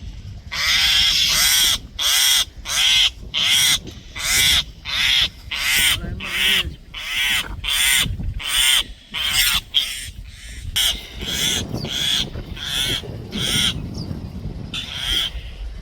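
Common myna giving its alert call: a long run of harsh, rasping squawks, about one and a half a second. The calls grow shorter and weaker in the second half, with a short pause before a last call near the end.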